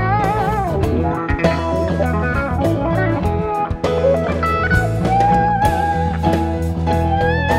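Live band playing an instrumental break in a blues-rock song: an electric guitar lead with bent, wavering notes over bass guitar and drums.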